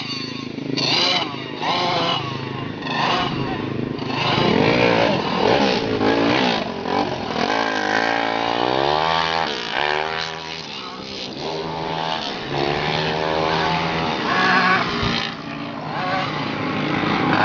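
Several dirt-track race car engines running laps, their pitch rising and falling as they rev through the turns and pass.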